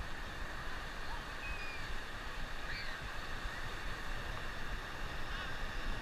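Steady wash of ocean surf, with gusty wind rumbling on the microphone.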